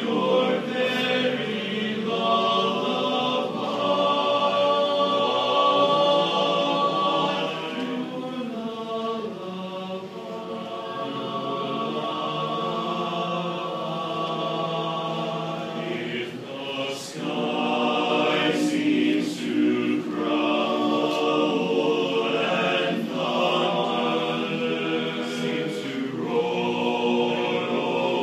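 Men's a cappella chorus singing in harmony, holding long sustained chords that shift slowly from one to the next. There is a short break in the sound about sixteen seconds in, before the voices come back in.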